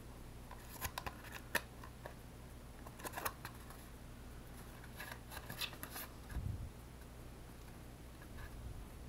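Scattered small clicks and scrapes from handling a cardboard circuit board and bending a capacitor's wire leads through it, with a soft low bump about six and a half seconds in.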